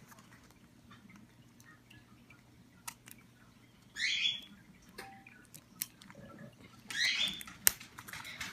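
Hard plastic Fashems toy capsule being twisted and pried by hand: it is stuck and won't open, giving scattered sharp plastic clicks and a couple of short scraping hisses, the loudest click near the end.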